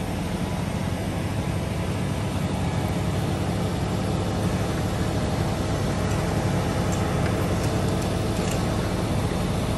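Engines of heavy utility bucket trucks running steadily, a low, even drone with no breaks.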